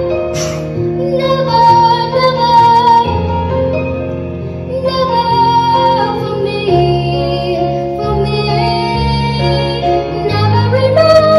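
A girl singing a slow pop ballad into a microphone over a recorded backing track, holding long notes over steady chords.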